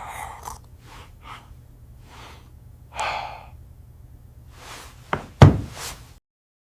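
A series of short, sharp breaths or sniffs, one louder gasp about three seconds in, then a loud thump about five seconds in, after which the sound cuts out completely.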